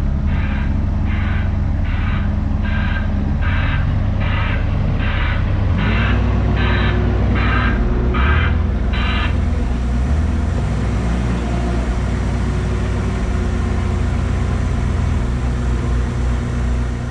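Cat 301.7 CR mini excavator's diesel engine running steadily, its pitch shifting a little about six seconds in. A travel alarm beeps about one and a half times a second and stops about nine seconds in.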